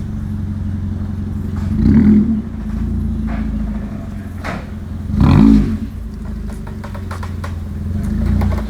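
Car engine running steadily, with two brief swells in revs, about two and five seconds in.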